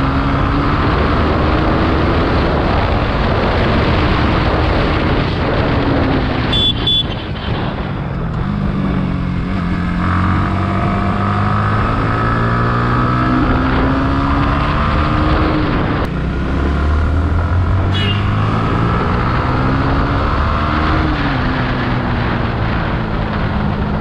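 Yamaha MT-15's 155 cc single-cylinder engine under way on the road, its pitch climbing as it accelerates and dropping at gear changes, with wind noise over it. A brief high beep about seven seconds in.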